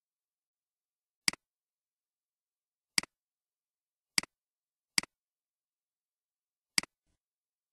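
Five sharp computer mouse clicks spaced irregularly over several seconds, each a quick double tick of press and release, with dead silence between.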